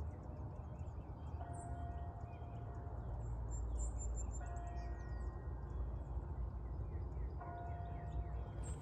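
Distant church bell striking the hour: three long ringing strokes about three seconds apart, over a steady low rumble, with faint bird chirps.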